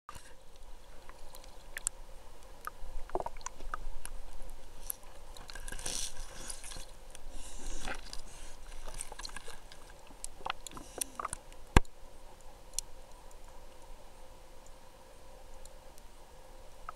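Muffled water movement heard through an underwater camera housing: swirling, sloshing swells with scattered small clicks and crackles, and one sharp click about twelve seconds in.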